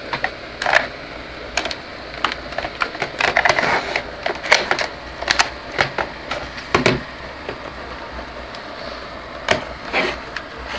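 Irregular plastic clicks and knocks from a small UTECH DVX-600 camcorder being handled and turned over in the hands, with a pause of a couple of seconds about two-thirds through. Near the end its flip-out LCD screen is swung open.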